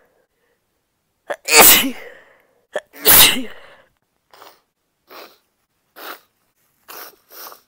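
A woman sneezing twice in quick succession, each a short sharp intake followed by a loud sneeze. Then several short, quieter sniffles.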